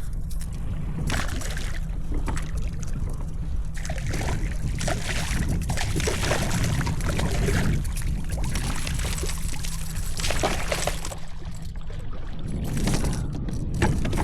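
Water splashing and sloshing at a kayak as a hooked speckled trout thrashes near the boat, in irregular bursts over a steady low rumble.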